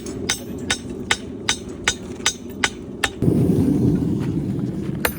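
Hammer blows on hot steel at an anvil, forging an axe: about eight sharp ringing strikes, roughly two and a half a second, that stop about three seconds in. A louder steady low rush follows, with one last strike near the end.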